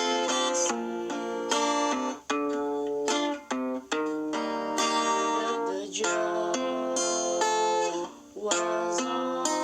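Guitar played alone without effects, chords struck and left to ring, with short breaks between chord changes every second or two.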